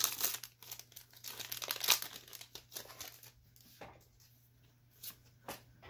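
Foil Pokémon booster pack wrapper being torn open and crinkled: dense crackling for about three seconds, then a few brief rustles.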